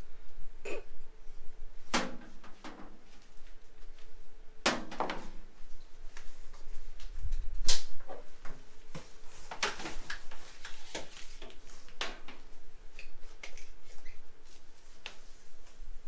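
Scattered sharp knocks and clicks of things being handled and set down, the loudest about two, five and eight seconds in, with brief rustling in between.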